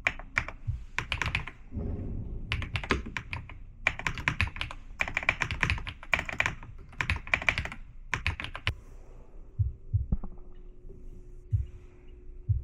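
Typing on a computer keyboard: quick runs of key clicks in bursts with short pauses, thinning to a few scattered taps and thumps after about nine seconds.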